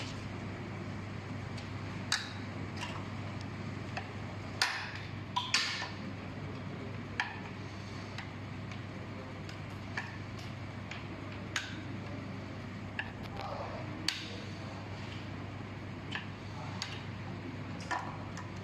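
Scattered sharp clicks and light knocks of hand tools and metal parts being handled during the brake disassembly, one every second or two, the loudest pair about five seconds in, over a steady low hum.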